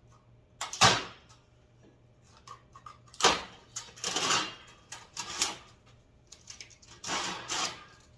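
Plastic packaging crinkling and rustling in several separate bursts as parts are unwrapped, the loudest just before a second in.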